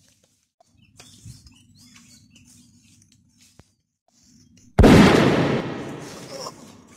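A single loud gunshot sound effect about five seconds in: a sudden blast that dies away over about two seconds.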